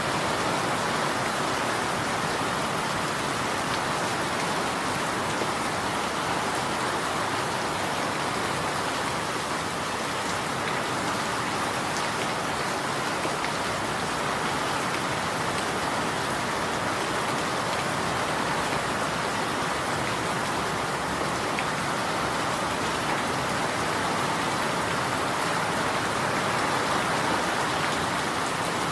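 Steady rain falling, an even hiss of countless drops without letup.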